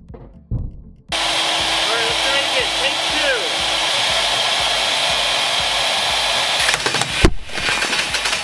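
Table saw running loud and steady. Near the end, a rapid run of sharp cracks and one loud bang: wooden dowels are fired through the blade full-auto and burst the cans.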